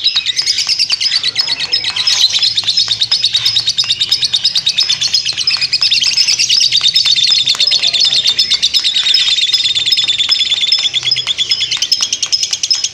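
Lovebird 'ngekek': one long, unbroken run of rapid, high-pitched chattering chirps.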